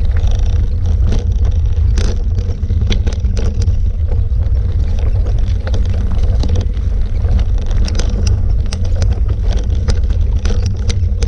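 Wind rumbling on the microphone of a camera riding along on a mountain bike, with many sharp clicks and rattles from the bike running over the rough, stony trail.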